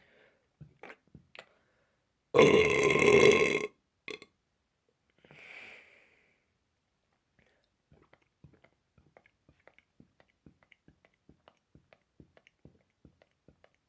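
A person lets out one long, loud burp about two and a half seconds in, lasting over a second. A soft breathy sound follows. From about eight seconds on there are faint short clicks, a few a second.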